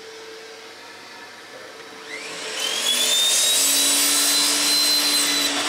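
Bosch sliding mitre saw spinning up about two seconds in with a rising whine, then cutting through 100 mm PVC pipe. It is loud and steady through the cut and begins to wind down at the end. A steady low hum runs underneath.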